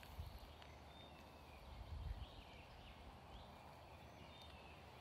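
Near silence outdoors, with faint scattered bird chirps and two soft low bumps, about a quarter second and two seconds in.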